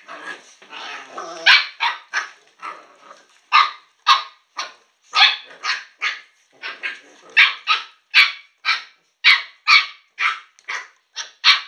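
Young puppies yapping: a quick series of short, high-pitched barks, about two a second, starting about a second and a half in after some softer growls.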